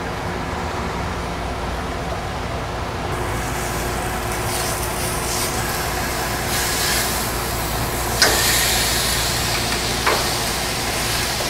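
Steady drone of a grill vent hood's fan. A few seconds in, steaks start sizzling on the grill grate, and near the end there are two sharp clicks of a metal utensil against the grate as the steaks are turned.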